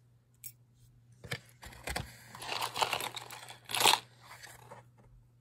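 Hands rummaging through loose metal costume jewelry in a cardboard shipping box: a run of rustling and small clattering that starts just after a second in and is loudest near the end.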